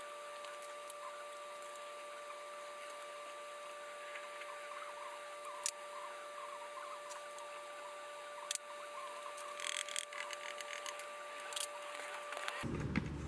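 Light handling noise at a disassembled diesel engine block: a few sharp clicks and a short rustle as gloved hands wipe the crankshaft journals with a shop rag, over a faint steady hum. Near the end a louder low hum comes in suddenly.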